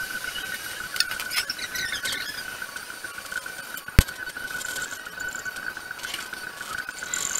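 Pencil scratching on paper in short scratchy spells while a circle is drawn and shaded, over a steady thin high whine. There is one sharp click about four seconds in.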